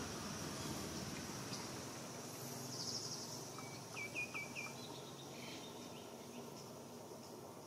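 Outdoor ambience: a steady high insect drone over a low background rumble, with a small bird giving a quick run of four short chirps about four seconds in.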